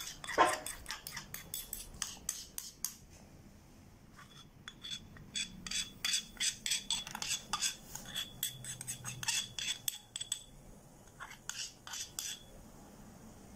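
Rapid light clinking and tapping of a porcelain mortar and spatula against the rim of a glass beaker as powdered chalk is knocked out into hydrochloric acid. The taps come in three runs with short pauses, a faint ringing behind the longest run.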